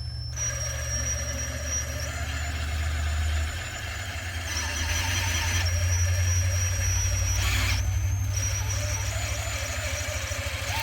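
Cordless drill running steadily with a high whine, spinning the engine's oil pump through an extension shaft to prime the oil system before first start. The hum changes a few seconds in.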